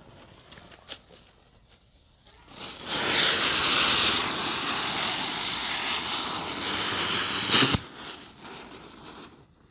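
Two Diwali ground spinners (chakri) burning: the lit fuses sputter with a few small crackles, then about two and a half seconds in the spinners catch with a loud, steady hiss of sparks. The hiss lasts about five seconds and ends in a sharp pop, then a fainter hiss dies away.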